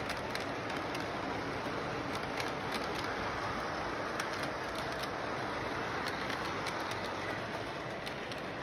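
Model train running on its track: a steady whirring rumble of wheels and motor, with frequent irregular clicks as the cars roll over the rail joints.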